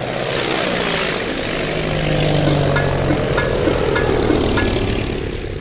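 Propeller biplane engines droning as a formation flies past, swelling to a peak and easing off.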